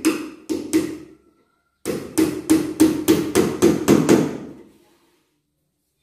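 Hammer driving a nail into a wooden frame board: a few blows, a short pause, then a quick run of about nine blows that stops about four seconds in.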